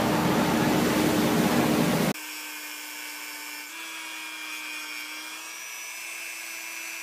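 A loud, even rushing noise with a steady hum cuts off suddenly about two seconds in. Small corded electric clippers then run with a steady motor whine, their pitch shifting slightly about halfway through.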